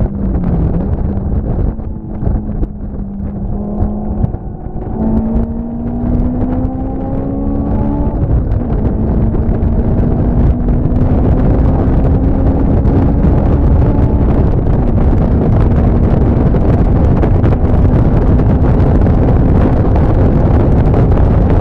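An engine running with a steady drone whose pitch climbs slowly in the second half, under heavy wind buffeting on the microphone.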